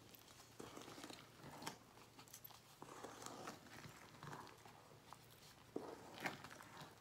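Wooden spatula folding whipped egg whites into chocolate batter in a metal bowl: faint, irregular wet squishing and scraping strokes, the loudest a little before the end. The slow, gentle folding keeps the egg-white foam from collapsing.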